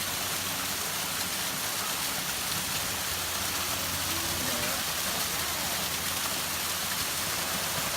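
Steady rush of water falling down a 30-to-35-foot two-stage waterfall.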